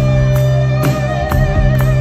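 Live rock band: an electric guitar holds one long note with vibrato over bass and drums, the drums striking about twice a second.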